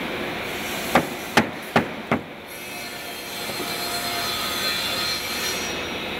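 Four quick mallet blows knocking plywood cabinet panels together, less than half a second apart, over a steady hiss of workshop noise.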